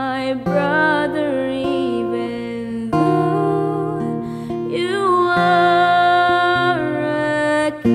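A woman singing a worship song with strummed acoustic guitar accompaniment, holding some long notes with vibrato.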